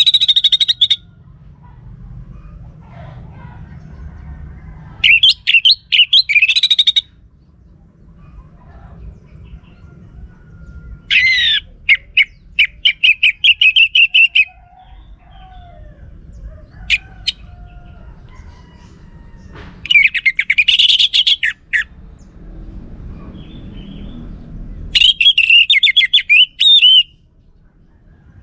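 Orange-headed thrush (anis merah) singing: a series of loud, rapid, warbling phrases about two seconds long, separated by pauses of a few seconds, over a steady low background rumble.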